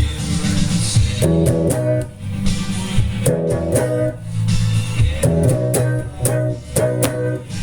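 Guitar-based rock music with no vocal: a bass holds low notes under an electric guitar figure that repeats about every two seconds, with sharp strummed or struck accents.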